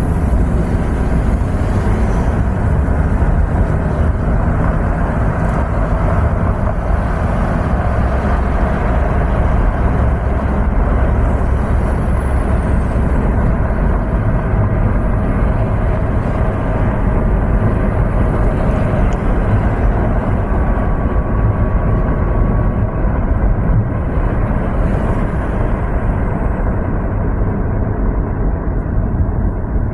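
Steady road and engine noise from a vehicle driving along a multi-lane road, even throughout and strongest in the deep bass.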